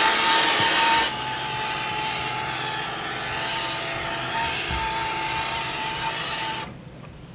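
Small electric motor of a Bass Pro Shops Nitro RC boat running at speed, a steady high whine with a hiss. It drops in level about a second in and falls away abruptly near the end.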